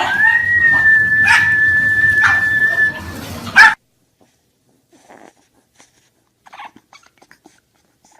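Dog giving one long, high-pitched whine that rises at the start and then holds steady for about three seconds, followed by a short, loud yelp. After that only faint small sounds.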